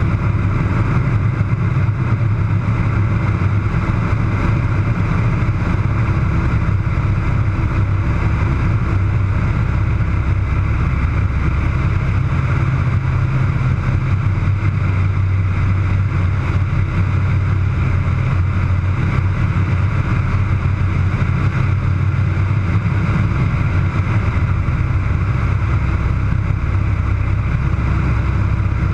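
Pratt & Whitney R-1340 radial engine and propeller of an Air Tractor AT-301 crop duster in flight, heard from inside the cockpit: a loud, steady, deep drone.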